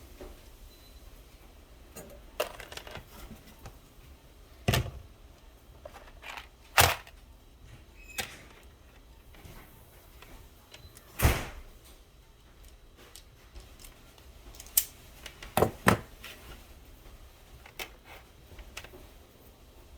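Irregular sharp clicks and knocks, as of objects being handled and set down, with a few louder knocks scattered through and a close pair near the end.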